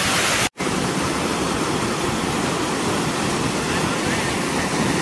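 Water rushing at high speed through a breach in a canal embankment, a steady, even rushing noise. The sound cuts out for an instant about half a second in.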